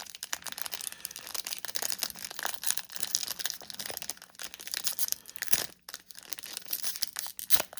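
Crinkling and rustling of a trading card pack's wrapper and cards being handled: a dense, irregular run of small crackles.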